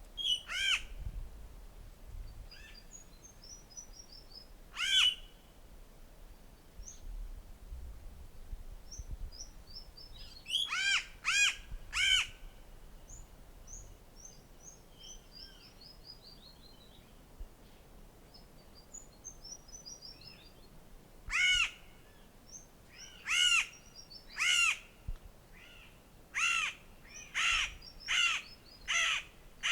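Mariana crow calling: short, harsh caws, some single, then a quick run of three, and near the end a series of about one a second. Between the caws, a fainter, higher series of descending chirps from another bird.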